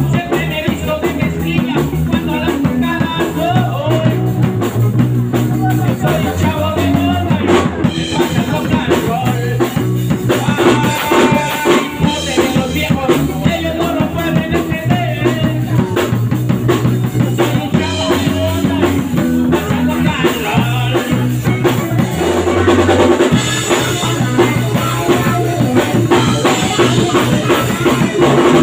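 Small rock band playing live: electric bass holding low notes, a drum kit keeping a steady beat, and electric guitar.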